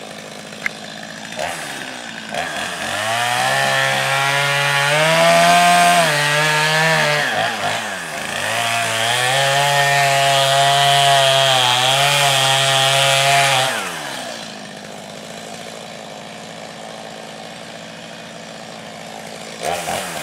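Two-stroke chainsaw felling a tree: it idles, then runs at full throttle through the trunk in two long cuts with a short dip between them. About fourteen seconds in it falls back to a steady idle, and it revs up again right at the end.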